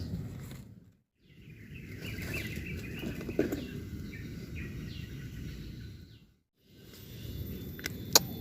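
Small birds chirping over a steady low outdoor rumble, broken twice by brief silences, with a sharp click near the end.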